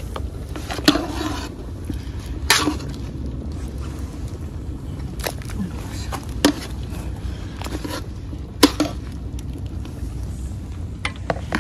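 A wooden spoon knocks against a large metal cooking pot of simmering soup every second or two as it is stirred, over a steady low rumble.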